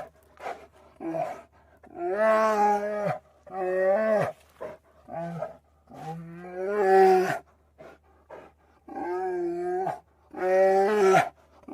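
Bear giving a string of drawn-out, pitched calls, each up to about a second long, with short pauses between them.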